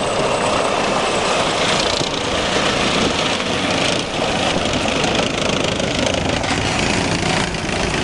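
AMX-30 main battle tank driving past at close range, its 12-cylinder diesel engine running steadily with the noise of its tracks rolling on concrete.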